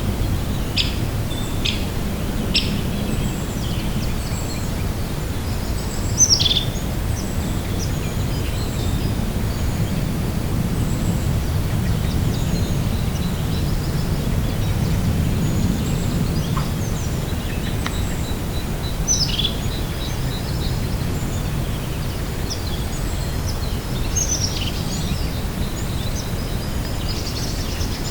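Small birds calling over a steady low rumble of outdoor noise. The calls are short, high, down-sliding notes, several early on, one about six seconds in, others around nineteen and twenty-four seconds, and a fast, thin ticking trill in the middle.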